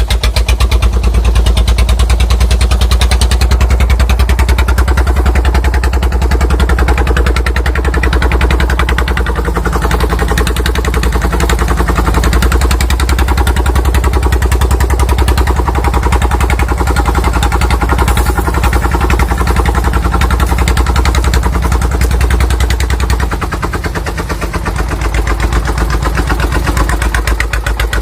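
Single-cylinder Dong Feng diesel engine of a homemade truck running under load, with a rapid, steady knock from the exhaust. It eases off briefly near the end, then picks up again.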